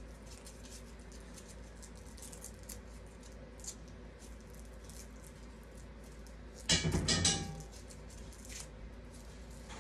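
Handling noises as a shoe or sock is taken off: faint scattered ticks and rustles, then a louder clatter of clicks and rustling about seven seconds in.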